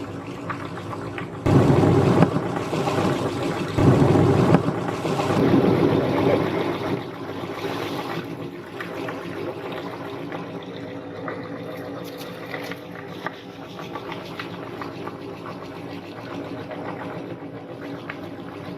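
Electric meat grinder running while grinding soft cookies, its motor giving a steady hum. It surges louder about a second and a half in and again at about four seconds, then settles into a steady run.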